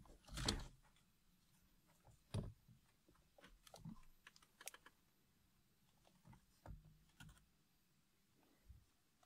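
Faint scattered clicks and knocks of a BMW E46 steering-wheel airbag module being handled and pressed against the steering-wheel hub, the loudest knock about half a second in.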